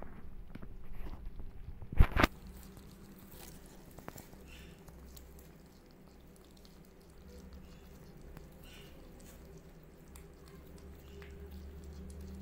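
Kittens crunching dry cat food kibble from a plate. Two sharp knocks about two seconds in, then faint scattered crunching over a low steady hum.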